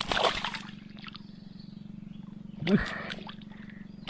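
Splashing of a hooked wild Nile tilapia thrashing at the water's surface as it is drawn to hand, with one splash right at the start and another about two and a half seconds later.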